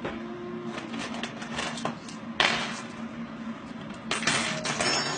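Light clicks and clatter of kitchen utensils and containers being handled on a countertop, with two short sharp rustling bursts about two and a half and four seconds in, over a steady low hum.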